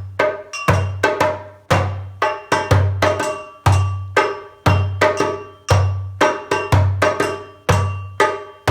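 Hand drum played in a steady African rhythm: a deep bass stroke about once a second, with quicker, higher ringing strokes between.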